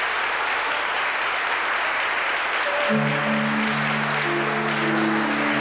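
Audience applauding steadily, with music of held notes coming in under the applause about three seconds in.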